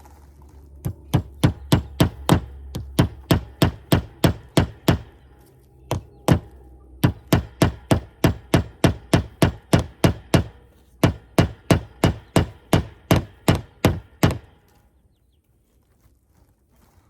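A hammer driving a nail into wood: a long run of steady, evenly spaced strikes, about three a second, with a short pause partway through. The nail is fastening chicken-run netting through a grommet.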